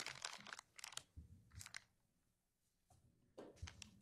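Faint rustling and crinkling of a plastic evidence package being handled, in short scattered bursts during the first second and a half and again near the end, with near silence between.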